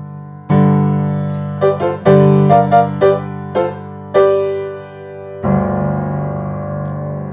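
Piano playing the closing bars of a simple piece: struck chords with a few quick short melody notes between them, ending on a final chord about five seconds in that is held and left ringing.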